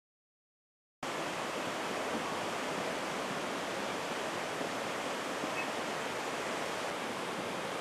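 A muddy river in flood rushing, a steady even sound of churning water that starts abruptly about a second in.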